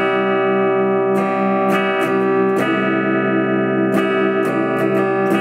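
Electric guitar played through a Fender Mustang LT25 modelling amp: sustained, ringing chords with picked notes pulsing beneath them and a sharp pick attack about every half second.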